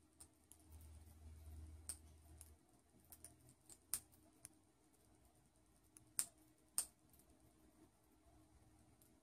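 Near silence in a small room, broken by scattered, irregular faint sharp clicks; the clearest come about four seconds in and twice between six and seven seconds in.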